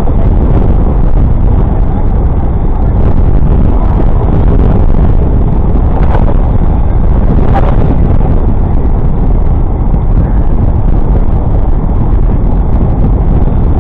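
Steady loud rumble of wind buffeting the microphone and city traffic noise while riding a bicycle, with a brief sharp click about seven and a half seconds in.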